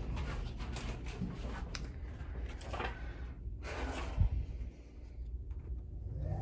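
Low rumble and handling noise from a handheld phone being moved about, with scattered soft clicks and one short thump about four seconds in.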